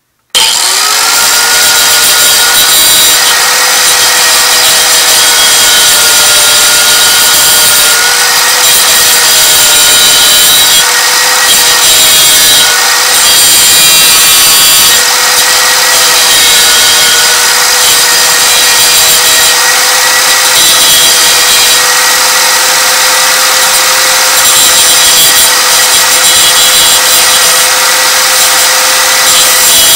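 Angle grinder switched on and spinning up about half a second in, then grinding a steel bolt: a steady whine over a loud grinding hiss, its pitch wavering slightly as the disc bears on the metal. The grinder is cutting relief behind the cutting edges of a bolt being made into a thread-cutting tap.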